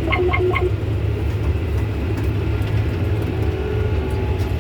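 John Deere tractor engine running steadily with a low drone. A few short, quick beeps sound just after the start.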